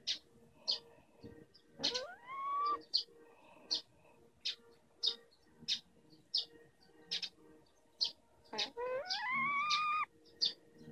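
Two long animal calls that rise in pitch and then hold, one of about a second and a longer one of about a second and a half near the end, over a bird's short high chirps repeating about every two-thirds of a second.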